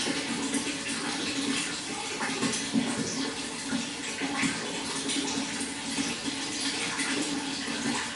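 Water running and splashing steadily, a continuous flow with small irregular splashes.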